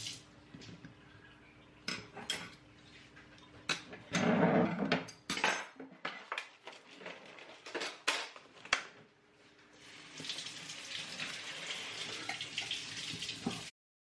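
Kitchen handling sounds: scattered knocks and clinks as a bowl, a tofu tub and grocery packaging are handled and set down on a wooden table, with plastic packaging rustling. Near the end comes a steady rushing hiss lasting about four seconds that cuts off suddenly.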